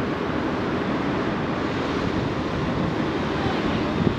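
Steady wind noise rushing over the microphone, with road traffic running beneath it.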